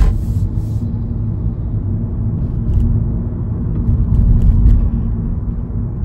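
Steady low rumble of a car driving along, heard from inside the cabin, with a faint steady hum through it. A few faint light clicks come around the middle.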